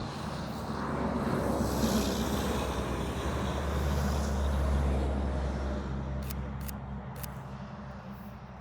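A road vehicle's engine hum swelling and then fading, as of a vehicle passing by, with a few short clicks near the end.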